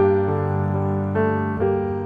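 Background piano music: soft chords and notes struck one after another at a slow, even pace.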